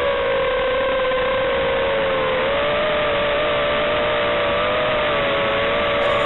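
A ZMR250 racing quadcopter's Emax brushless motors and Gemfan 5030 props whining in flight, with rushing air. The whine holds a steady pitch that wavers a little as the throttle changes.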